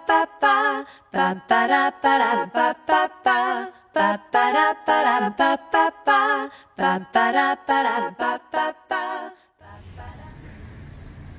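A voice singing short, separated notes with a wavering pitch and no instruments behind it, cutting off suddenly near the end; a low steady hum follows.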